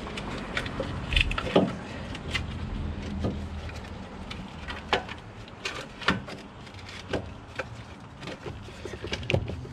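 Scattered metal clinks and knocks of tools and parts as a truck's engine mount is worked free from under the raised engine, over a low steady hum.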